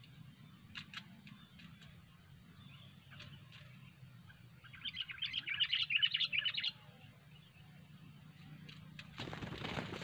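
Sooty-headed bulbul giving a rapid, loud burst of chattering calls about five seconds in, after a few faint chirps. A short rustling burst, like wing flapping, starts near the end.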